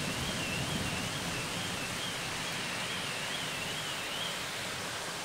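Steady hiss of heavy rain pouring down on trees, cars and pavement. A faint high warbling tone rises and falls about twice a second over it and stops about four seconds in.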